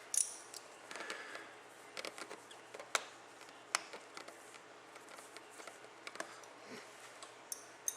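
Scattered small clicks, taps and rubbing of hands working rubber covers back over a motorcycle's throttle cable adjusters on the handlebar.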